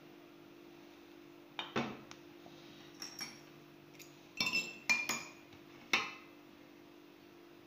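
Porcelain cups and saucers clinking against each other and against a metal serving tray as they are handled and set down: about eight sharp clinks between about one and a half and six seconds in, a few ringing briefly.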